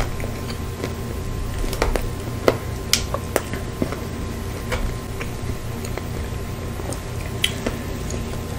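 Close-miked, wet, squishy eating and food-handling sounds as ketchup-covered fried snack pieces are picked up and brought to the mouth. Scattered sharp clicks, a few louder ones in the first half and one near the end, over a steady low hum.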